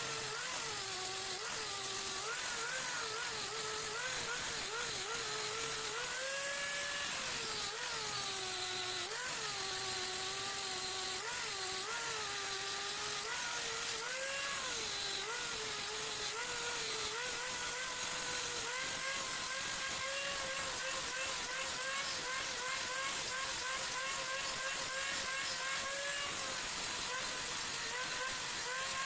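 Electric grinding machine running while it grinds down a wooden knife handle; its motor pitch dips and recovers as the wood is pressed against it, then holds steadier in the second half, with a hiss of grinding throughout.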